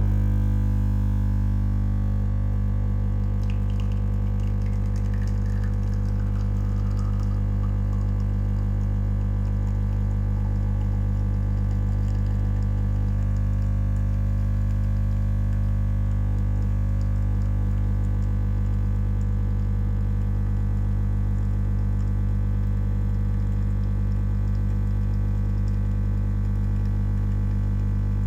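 Lavazza A Modo Mio Tiny capsule espresso machine's pump running steadily, a low buzzing drone, while it pushes water through the capsule to extract an espresso.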